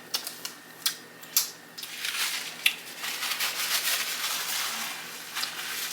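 Close-miked chewing of a mouthful of Subway sub loaded with crisp vegetables: a few sharp mouth clicks, then a longer stretch of wet, crackly crunching in the middle.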